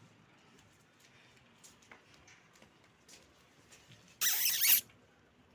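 A Dogo Argentino puppy gives one sharp, high-pitched squeal lasting about half a second, some four seconds in, during rough play. Faint scattered clicks come before it.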